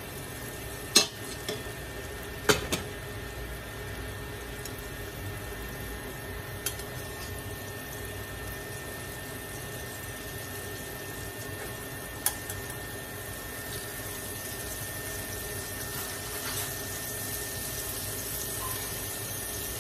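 Battered vegetable pieces deep-frying in hot oil in a stainless steel pot, a steady sizzle. A few sharp clicks of metal tongs against the pot and strainer.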